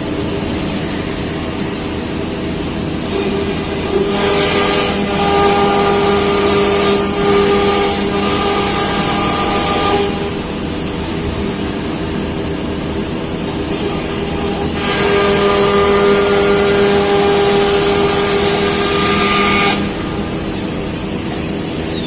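CNC router machine running, with a steady whine. Twice it grows louder and noisier for several seconds and then drops back, like the router bit cutting and then lifting clear. A high whistle falls in pitch near the end.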